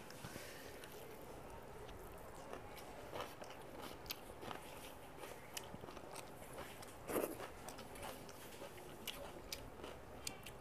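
Quiet eating sounds: chewing, and fingers mixing rice on a brass plate, with scattered soft clicks and a slightly louder smack about seven seconds in.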